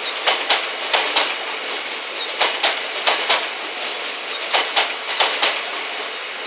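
Wheels of new Tsukuba Express electric cars, towed as a kōshu transfer behind a freight locomotive, clicking over the rail joints above a steady rolling hiss. The clicks come in close pairs, two pairs together and then a pause, repeating through the passage.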